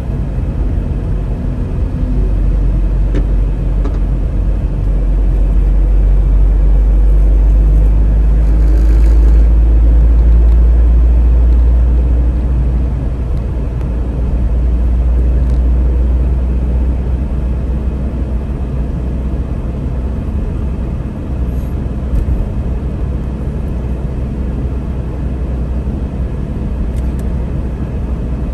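Steady low rumble of a car driving at expressway speed, heard from inside the cabin: tyre, road and engine noise, swelling louder for a few seconds in the middle before settling back.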